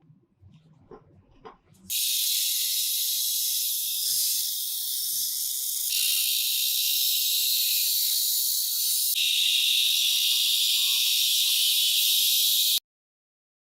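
A loud, steady spray hiss that starts abruptly about two seconds in, changes level abruptly twice, and cuts off sharply near the end; faint clicks of handling come before it.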